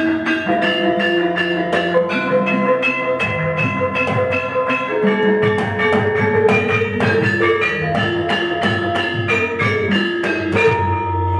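Javanese gamelan ensemble playing a fast, even-beat sampak: kendang hand drums, bonang kettle gongs and saron metallophones struck in a dense run of ringing pitched notes. A deep low tone swells in near the end.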